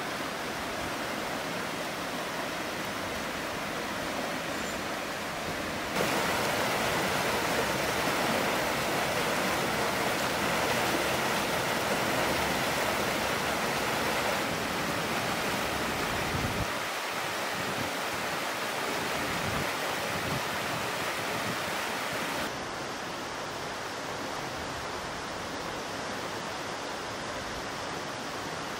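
Rushing water of a rocky bush river and its small cascade, a steady rush. It steps abruptly louder and brighter about six seconds in and drops back to a softer rush a little past twenty-two seconds.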